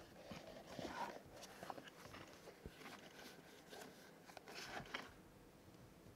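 Faint rustling and small clicks of a leather pouch being handled, heard between about half a second and five seconds in.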